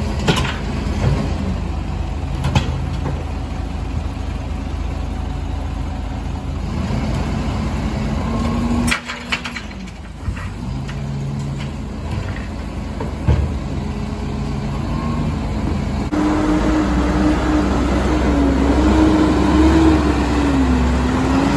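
Rear-loading garbage truck, a Hino 500, running with its engine raised as the rear bin lifter tips a wheelie bin, with a few sharp clanks. From about three quarters of the way in, the engine gets louder as the truck pulls away and drives past.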